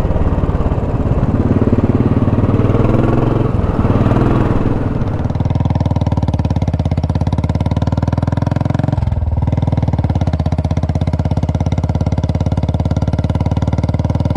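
Royal Enfield Classic single-cylinder motorcycle engine running at a steady cruise, heard from on the bike, mixed with wind rush for the first five seconds. After that its even, pulsing beat comes through plainly, with a brief dip about nine seconds in.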